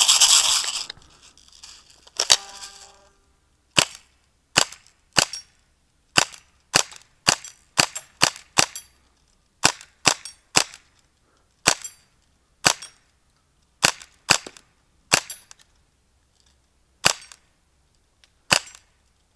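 Umarex Steel Force CO2-powered BB gun firing about twenty sharp pops, one at a time, at uneven gaps of half a second to two seconds. They come after a short loud rush of noise at the start and a single click about two seconds in.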